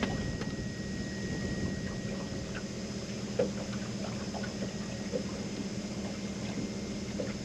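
A motor on a fishing boat running with a steady low hum, with a few faint clicks and knocks.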